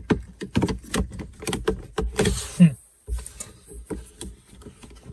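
Fingers working in a dashboard tweeter opening: a rapid run of small plastic clicks, taps and rattles, fainter after about three seconds.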